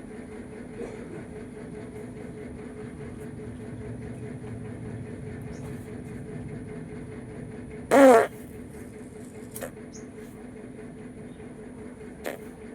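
One short, loud fart sound about eight seconds in, its pitch bending, over a steady low background hum.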